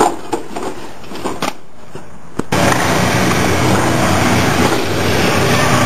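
A skateboard on a wooden picnic table: one sharp hit at the start, then a few lighter knocks. About two and a half seconds in, the sound cuts abruptly to a louder, steady rumble of skateboard wheels rolling across a smooth indoor skatepark floor.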